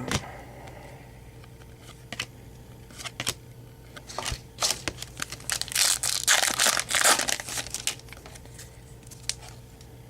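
Scattered light clicks and rustles of cards being handled, then, about six seconds in, a loud burst of crinkling and tearing lasting just over a second as the wrapper of a Topps baseball card pack is torn open.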